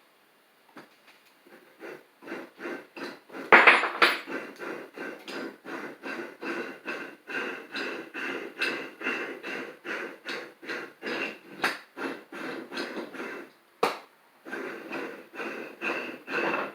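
Rapid hammer blows on the metal parts of an old Bulldog bench vise, about three a second, each with a short ringing note. The strikes start softly and are loudest after a few seconds. They break off briefly near the end, with a single blow in the gap, then start again.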